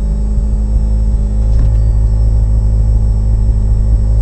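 Mitsubishi Lancer Evo VI Tommi Makinen Edition's turbocharged four-cylinder engine idling steadily, heard from inside the cabin.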